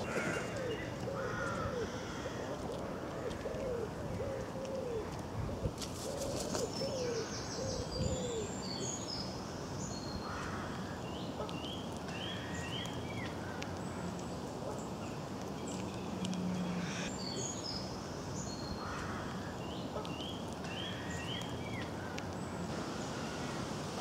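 Woodland birdsong: songbirds singing short high phrases of quick notes, and a pigeon cooing in a run of low repeated notes through the first eight seconds. A brief rapid clicking about six seconds in.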